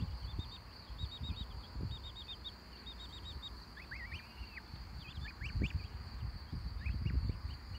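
Young goslings and ducklings peeping: short runs of quick, high chirps in the first half, then separate rising and falling peeps from about four seconds in, over low rustling.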